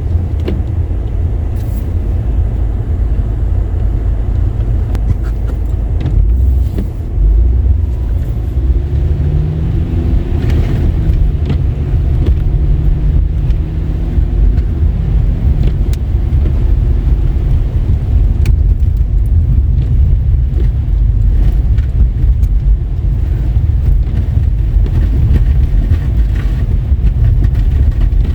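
Car driving, with a loud, steady low rumble of engine and tyre noise; a faint steady hum rises out of it for a few seconds in the middle.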